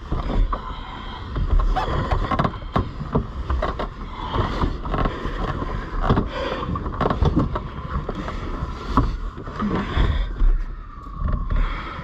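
Two people grappling inside a car: irregular thumps, bumps and rubbing of bodies and limbs against the seats, door and steering wheel, over a low rumble.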